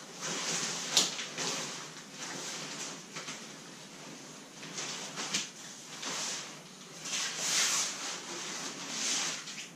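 Nylon fabric of a Marmot Tungsten 2-person backpacking tent rustling and swishing in several swells as it is unfolded and spread out by hand, with a sharp click about a second in.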